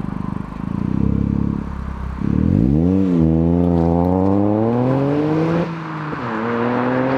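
Toyota GR Yaris's turbocharged 1.6-litre three-cylinder engine heard through a Milltek resonated GPF-back exhaust. After low steady running and a short blip, the car accelerates hard with the exhaust note rising in pitch, drops sharply at a gear change about five and a half seconds in, then rises again.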